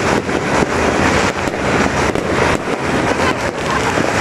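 Many fireworks and firecrackers going off at once: a continuous din of irregular pops and bangs with no break.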